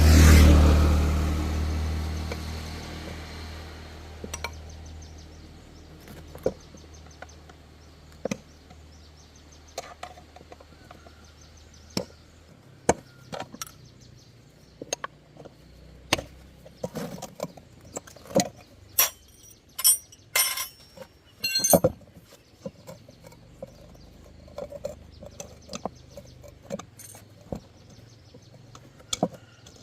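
A motor vehicle passes at the very start, its engine hum fading over the next few seconds. After that come scattered light clicks and knocks of hand work, with a cluster of sharper, bright clinks about two-thirds of the way through.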